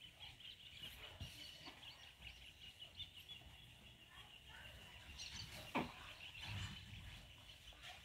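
Faint birds chirping in the background, with soft scraping and a short knock from a silicone spatula stirring flour in a plastic bowl.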